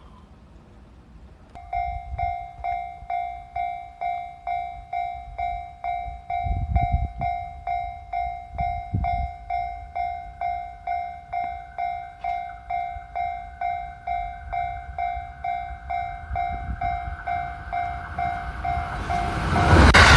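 Japanese railway level-crossing warning bell ringing its electronic ding about twice a second, signalling that a train is approaching. It starts about a second and a half in and stops just before the end, as the noise of the arriving train swells.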